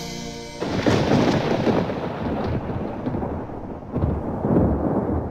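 The song's music stops abruptly and a thunderstorm sound effect takes over: rolling thunder with a hiss of rain, swelling once about a second in and again near the end.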